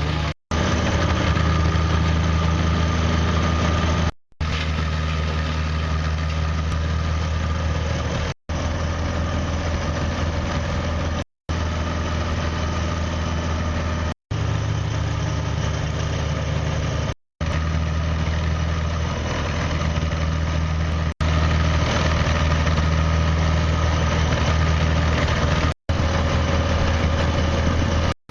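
A large engine idling steadily with a low, even hum, broken by brief silent gaps every few seconds.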